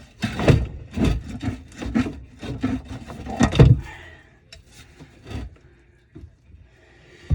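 Irregular knocks and scraping of metal tools on the rusted mount of an old Badger 5 garbage disposal as it is worked loose. The knocks come about twice a second for the first four seconds, then thin to a few faint clicks before picking up again at the very end.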